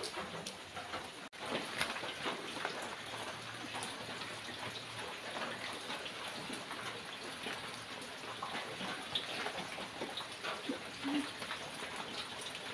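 Steady rain falling on a wet concrete yard: an even hiss with many small drop hits.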